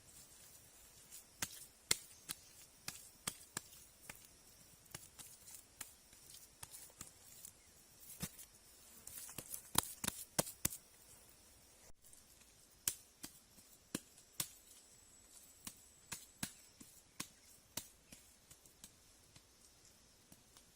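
Irregular sharp clicks and snaps of hand work with sticks or cane, with a dense run of them about nine to eleven seconds in.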